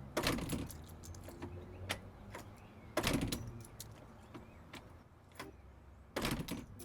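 A door and its newly fitted mortise lock being worked: scattered latch and hardware clicks, with three louder rustling knocks, near the start, about three seconds in and near the end.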